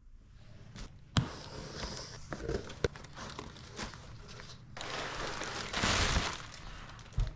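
Packaging being handled and opened: crinkling and rustling with sharp clicks, the loudest about a second in, and a longer tearing rush about five to six seconds in.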